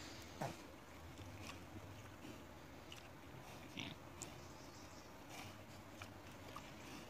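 Wild boars rooting and eating food scraps from bare ground: faint, scattered crunches and clicks of chewing. A short, louder sound comes about half a second in.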